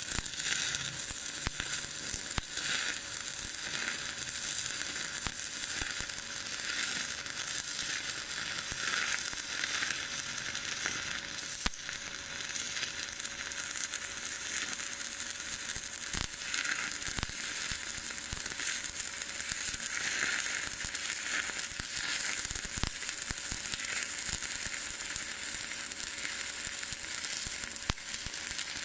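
Stick (SMAW) arc welding a bead on thin sheet metal: the arc crackles and sizzles steadily, throwing spatter the whole time.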